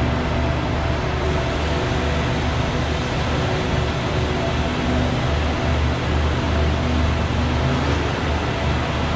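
Stationary passenger train's machinery running beside the platform: a steady drone with a strong low hum and a few held tones.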